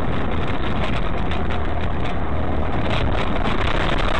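Steady road and engine noise of a moving car heard from inside its cabin, a loud even rush over a low drone.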